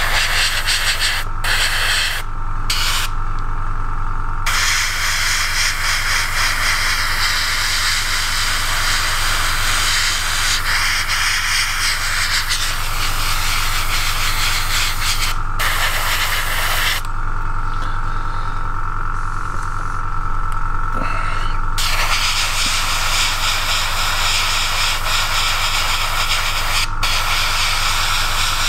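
Airbrush hissing as it sprays a small model part, cutting out briefly near the start and for several seconds past the middle, over the steady hum of the airbrush compressor.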